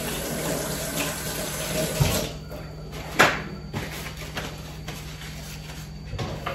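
Kitchen tap running into a stainless steel sink as hands are rinsed, shut off about two seconds in. A single sharp snap follows a second later, then the faint rustle of a paper towel as the hands are dried.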